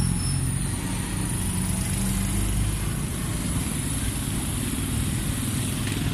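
A motor vehicle's engine running steadily, a low even hum with a constant hiss of road noise.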